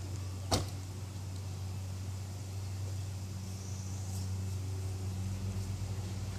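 Buick car engine running with a steady low hum, not cranking; a single sharp click about half a second in.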